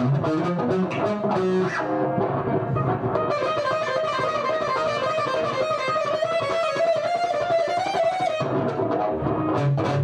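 Electric guitar, a PRS Silver Sky, played through a factory preset on a Line 6 HX Effects multi-effects unit. A few picked lower notes open the passage. From about three seconds in, a dense, sustained wash of layered notes with one held note on top takes over, and it thins out again near the end.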